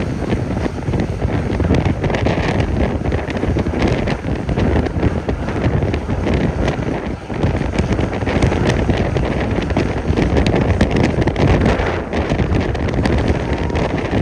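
Strong wind buffeting the microphone: a loud, continuous low rumble broken by irregular gusts.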